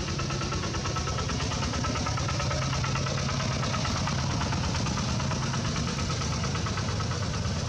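An engine idling steadily, with a fast, even pulse.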